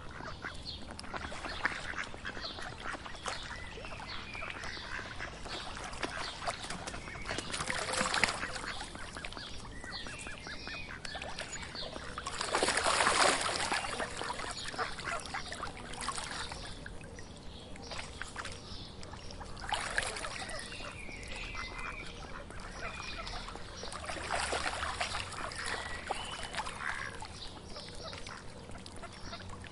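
Mallard ducks quacking in several bouts, the longest and loudest about halfway through.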